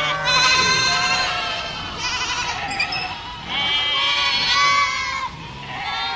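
A flock of sheep bleating: several long, quavering bleats overlapping and following one another with only short breaks.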